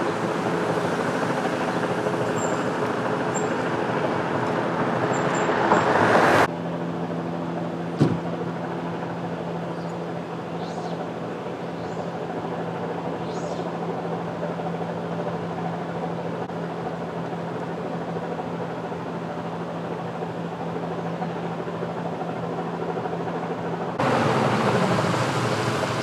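Motor vehicle engines running with a steady hum, broken by abrupt changes in the sound between shots, and one sharp click about eight seconds in. Near the end the sound grows louder as a police emergency service truck drives past, its engine note dropping.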